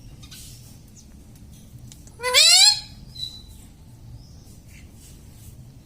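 Ring-necked parrot giving one loud, rising squawk about two seconds in, lasting about half a second, followed by a brief faint chirp.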